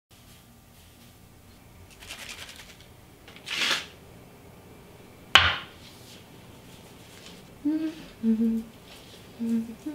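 Aerosol can of hair mousse hissing briefly as a palmful of foam is dispensed, after a short rustle. A sharp click comes about a second and a half later. Then come a few short hummed notes.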